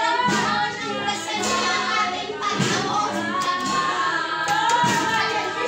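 Worship music: voices singing a melody together over instrumental accompaniment.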